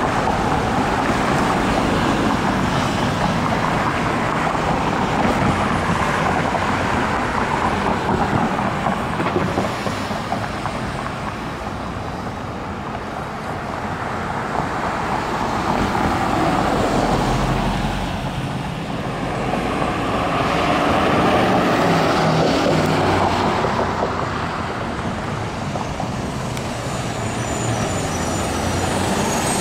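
Road traffic passing through an intersection: cars driving by, the engine and tyre noise swelling and fading as each one passes.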